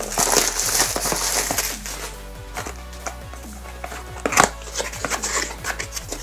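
Clear cellophane wrap crinkling as it is peeled off a small cardboard box, then scattered clicks and the rustle of card flaps being opened, with one sharp knock a little over four seconds in. Background music with held notes comes in under it.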